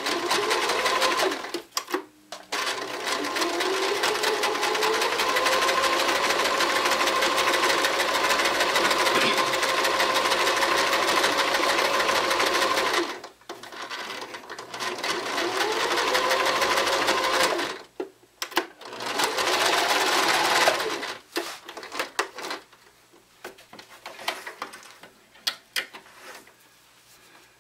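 Older domestic electric sewing machine stitching a hem in denim. The motor whines up to speed and runs steadily for about ten seconds, stops, then makes two shorter runs of a couple of seconds each. Near the end there are only faint clicks of the fabric being handled.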